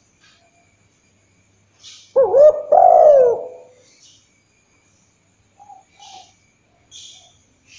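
Spotted dove cooing: one call a little after two seconds in, two quick notes and then a long coo falling in pitch.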